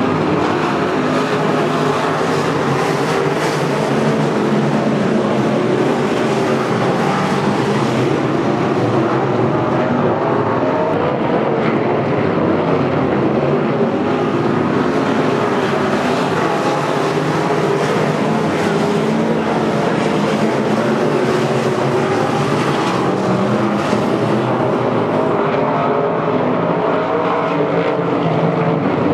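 Several dirt-track modified race cars running laps together, their V8 engines at high revs, the pitch rising and falling as they go around the track.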